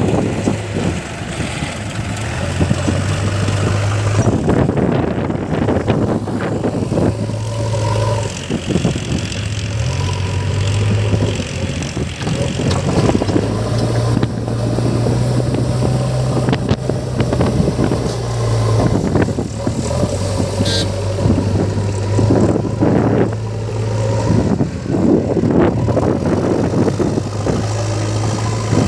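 Diesel engines of a JCB 3DX backhoe loader and a Mahindra tractor running, the loader's engine rising and falling in pitch every few seconds as it works, with scattered knocks and scraping.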